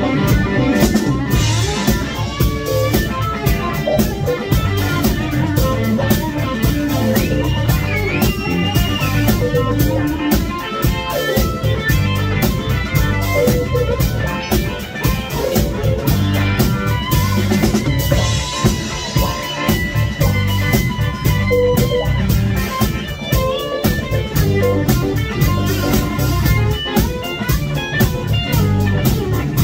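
Live band playing a steady groove on bass guitar, guitar and drum kit.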